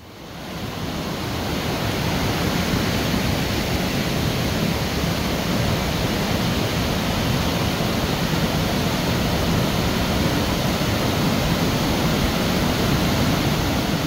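Water rushing through strong rapids and pouring over a waterfall in a sandstone gorge: a steady, even rush of noise that fades in over the first two seconds.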